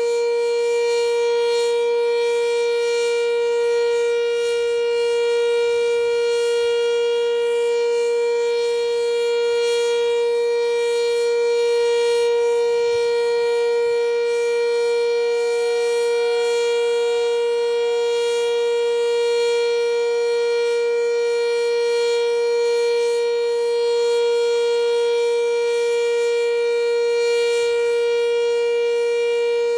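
Sentry 3V8 outdoor warning siren sounding a loud, steady tone at a constant pitch, with gentle swells in level. A fainter second siren tone comes and goes.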